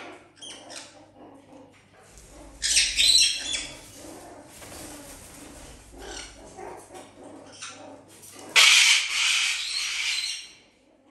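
Sulphur-crested cockatoo giving loud, harsh screeches: a short one about three seconds in and a longer one near the end, with quieter scattered animal noises between.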